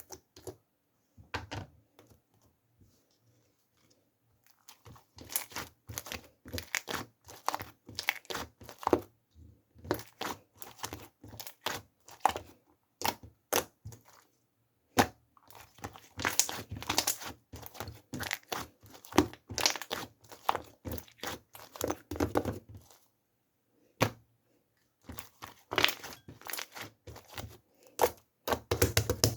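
Irregular crinkling and crackling in quick runs of clicks and rustles. It starts in earnest about five seconds in and breaks off briefly near the end.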